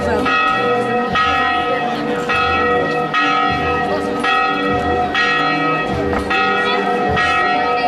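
Church bells ringing, struck in a steady rhythm about once a second, each stroke ringing on into the next.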